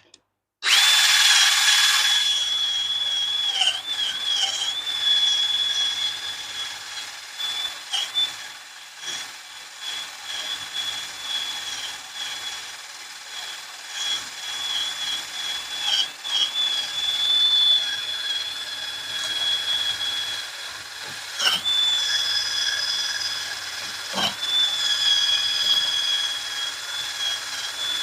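Power tool spinning a stiff steel wire brush, scrubbing caked-on corrosion where the steel hub seats against the aluminum knuckle. A steady high whine starts about a second in and dips briefly several times as the brush bites, with a few sharp knocks.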